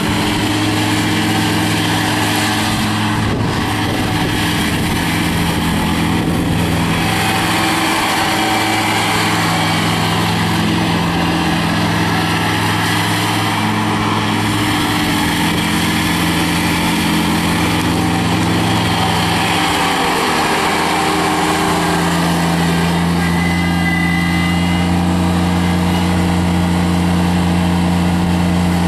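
Kubota BX2230 compact tractor's D902 three-cylinder diesel running steadily under load as it drives across the lawn mowing with its belly mower deck, the engine note shifting slightly about two-thirds of the way through.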